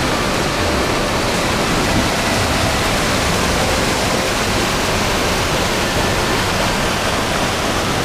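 Rushing white water of a small mountain-stream waterfall cascade, a loud, steady rush close by.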